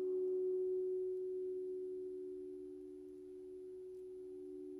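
A sustained pure tone, with a second slightly lower tone beneath it, slowly fading: the ringing tail of a meditation 'frequency' track, its overtones already gone.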